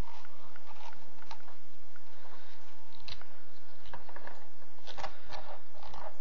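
Manual can opener cutting into a sardine tin: a run of irregular clicks and crunches as the cutting wheel is cranked around the lid, coming faster from about three seconds in.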